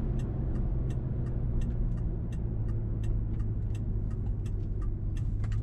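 The 4.6-litre V8 of a 2005 Mercury Grand Marquis running at a steady cruise, with a deep, even exhaust drone through an H-pipe with the mufflers deleted, heard from the cabin. Over it there is a sharp, regular ticking about three times a second.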